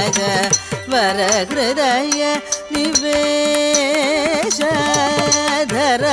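Carnatic music for Bharatanatyam dance: a melodic line with heavy oscillating pitch ornaments (gamakas), holding one long note about halfway through, over sharp, frequent percussion strokes.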